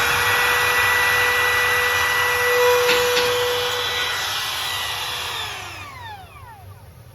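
Makita router with a quarter-inch round-over bit running at full speed with a steady high whine. It gets briefly louder about three seconds in during a test cut, then winds down after about five and a half seconds as it is switched off.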